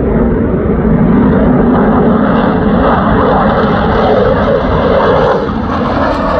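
Loud, steady jet engine noise from a Eurofighter Typhoon fighter climbing away. It eases off slightly about five seconds in.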